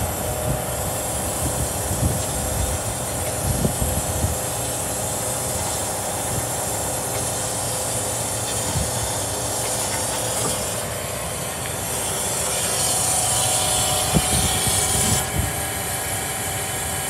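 A truck engine running steadily, a constant low rumble with hiss on top, while wind buffets the microphone with irregular low thumps.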